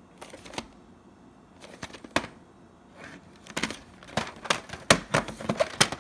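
Handling noise of a VHS tape in its cardboard sleeve being turned over in the hand: bursts of sharp clicks and scrapes, busiest in the second half.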